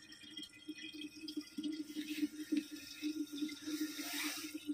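Water running from a self-service drinking-water vending machine into a large plastic water bottle: a steady filling sound with a slightly pulsing low note, and a brief louder hiss near the end.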